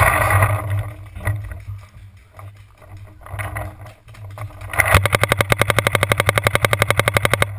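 Paintball marker firing a long rapid stream of shots, about eleven a second for nearly three seconds, starting a little before the end. Before it, rustling and knocking from movement at the start.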